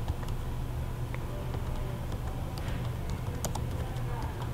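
Computer keyboard typing: scattered key clicks over a steady low hum.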